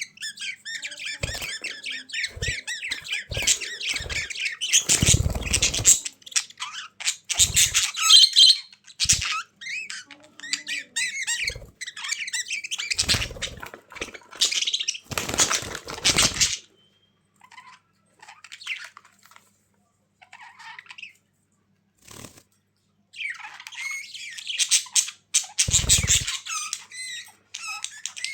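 Budgerigars chattering and warbling in quick, scratchy runs of chirps and squawks, with a few short low flutters or thumps mixed in. The chatter thins to scattered chirps for several seconds after the middle, then picks up again near the end.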